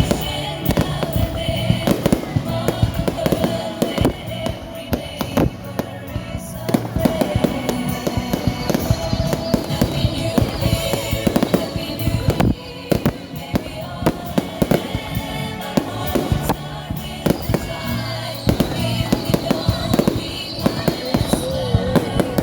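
Fireworks going off in many sharp, irregular bangs, some in quick clusters, with music playing along underneath.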